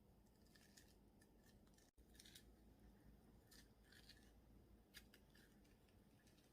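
Near silence, broken by a few faint, scattered light clicks and scrapes of small kitchen handling.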